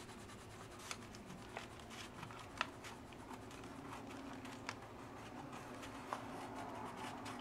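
Red colored pencil shading on drawing paper with light pressure: a faint, soft scratching, with a few small ticks of the pencil on the paper.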